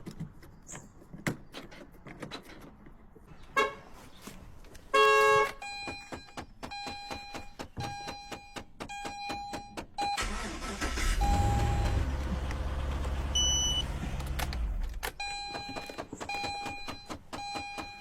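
A Holden car's electronic warning chime repeating at an even pace, with a short loud beep about five seconds in. Midway the chime pauses for about five seconds of low rumble, then starts again.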